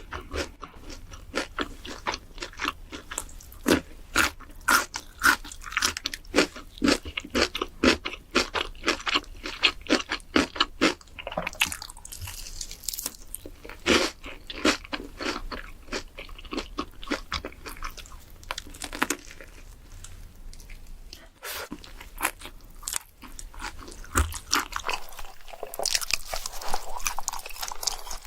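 Close-miked eating of crunchy food: a quick succession of loud crunching bites and chewing, with a brief break about three quarters of the way through before the crunching resumes.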